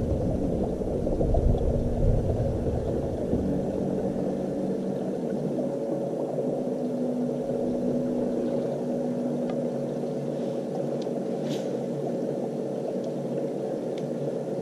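Boat motor running with a steady hum, its pitch shifting slightly partway through, with a few faint ticks in the second half.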